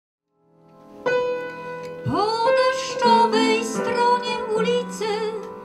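A woman singing a slow song with vibrato to upright piano accompaniment. The sound fades in, a piano chord strikes about a second in, and the voice enters with a swoop up about two seconds in.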